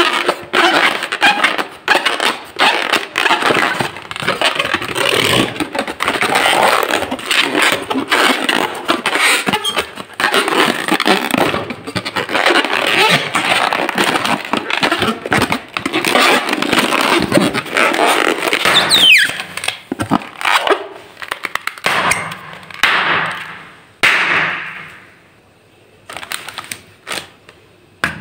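Inflated latex twisting balloons squeezed and rubbed by hands: a dense, continuous run of rubbery squeaks and scrapes, with one short rising squeal about two-thirds through. After that the squeaking thins into a couple of fading rushes of noise, leaving only a few light taps near the end.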